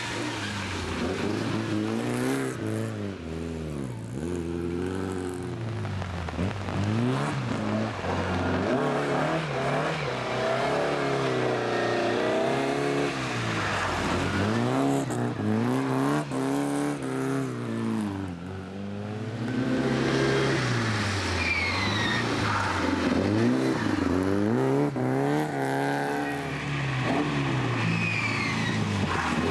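Talbot Sunbeam Lotus rally car's four-cylinder engine revving hard through the gears, its pitch climbing and dropping many times as it shifts and lifts off.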